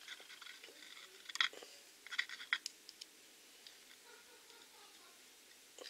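Faint handling noises: a few light clicks and rustles, clustered in the first half, then quiet room tone.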